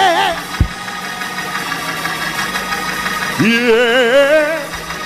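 The preacher's sung, drawn-out "Yeah" in the whooping style, heard twice with a wavering vibrato, over a steady held organ chord. A short low thump comes about half a second in.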